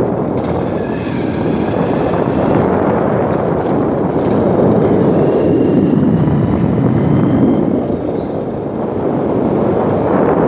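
Steady drone of a moving road vehicle, its engine noise mixed with the rush of travel, dipping briefly about eight seconds in.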